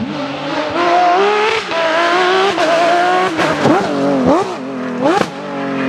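Porsche 911 GT3 rally car's flat-six engine accelerating hard up through the gears, its pitch climbing and dropping at each shift. From a little past halfway it changes to quick rev rises and falls, like throttle blips on downshifts, with one sharp rev near the end.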